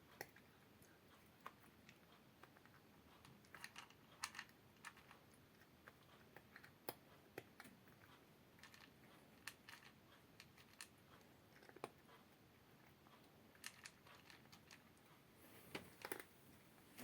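Near silence: faint room tone with scattered, irregular small clicks.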